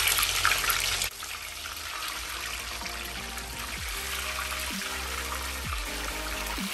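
Sunflower oil sizzling as batter-coated ice cream balls deep-fry in a steel pot. The sizzle is loud at first and drops abruptly about a second in. After that, quieter sizzling continues under background music with falling bass notes about once a second.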